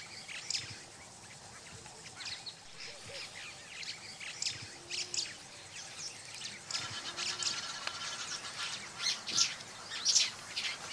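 Wild birds chirping and calling, many short sharp calls over a faint outdoor background, busier in the last few seconds.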